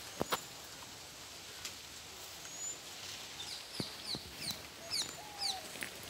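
Birds chirping outdoors: a quick run of short, high, falling notes in the second half, with a lower, drawn-out call near the end. Two sharp clicks just after the start are the loudest sounds.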